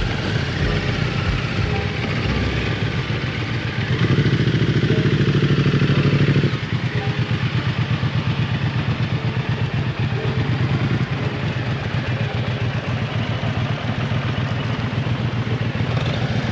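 Several cruiser motorcycles riding slowly past at low revs, their engines giving a low, pulsing note. The nearest bike is loudest from about four seconds in, and its sound drops off suddenly about six and a half seconds in.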